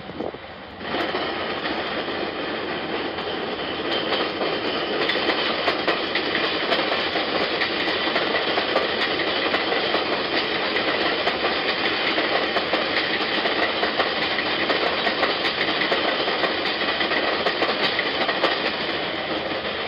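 New York City 4 train subway cars running along an elevated steel structure: a steady, loud rumble with a rapid clatter of wheels over the rails. It starts suddenly about a second in and grows louder a few seconds later as the train comes closer. It is heard as played back through a laptop's speakers.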